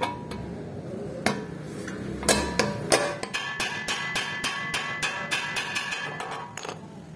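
Hand hammer striking the steel rivet that fastens a shovel's metal socket to its wooden handle, peening it over: a few separate blows, then a quick run of lighter taps, each with a metallic ring.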